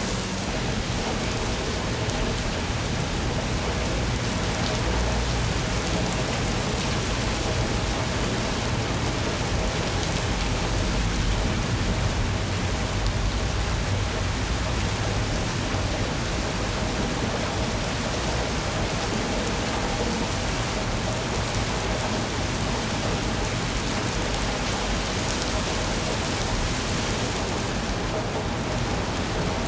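Steady rain falling, an even hiss with no let-up, over a low rumble underneath.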